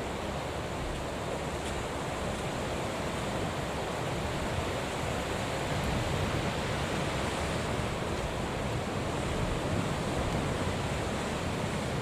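Steady rushing noise of wind and choppy sea, with gusts buffeting the microphone at the low end.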